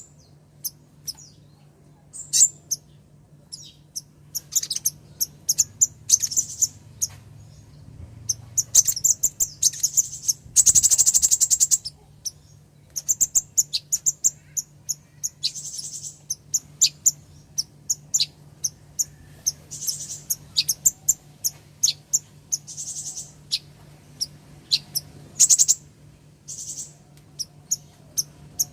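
Female kolibri ninja sunbird calling: repeated bouts of rapid, high-pitched chirps, with one long dense trill about eleven seconds in.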